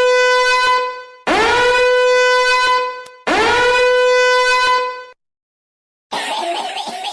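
Goofy drawn-out 'ahhh' yell sound effect, played three times in a row: each starts with a quick scoop up in pitch, then holds one steady, horn-like pitch for about two seconds. About six seconds in, a different, rougher and wavering 'ahhh' yell follows.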